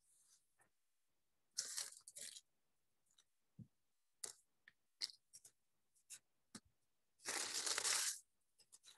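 Wax paper crinkling and crackling as it is handled and pressed down, in short bursts about two seconds in and a longer, louder crackle near the end, with scattered small crackles and taps between.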